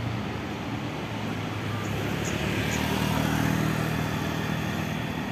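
Large bus's diesel engine running as the bus moves past, swelling louder in the middle, over general traffic noise.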